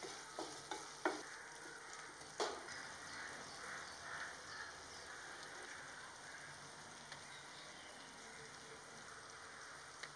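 Thick tomato-and-capsicum masala sizzling and bubbling gently in a nonstick pan on low flame. A wooden spatula knocks and scrapes against the pan four times in the first few seconds.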